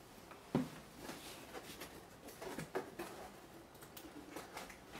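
Quiet handling of unpacked parts: a sharp knock about half a second in as a panel is set down on the table, then scattered light taps and rustling as hands reach into a cardboard shipping box.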